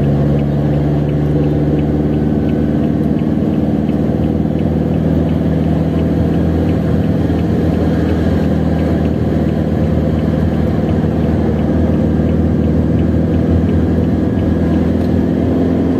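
Vehicle engine running steadily under load with road noise, heard from inside the cabin while climbing a wet road. A faint, regular tick repeats through it.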